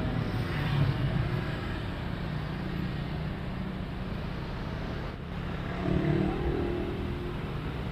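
City street traffic: motorbikes and cars passing, a steady hum of engines and tyres, swelling louder about six seconds in.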